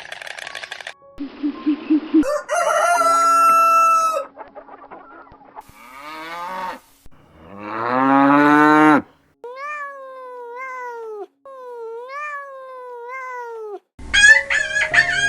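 A run of separate farm animal calls edited one after another: rooster crowing and chickens clucking among them. The loudest calls come about three seconds in and near the middle, followed by two wavering calls after short pauses.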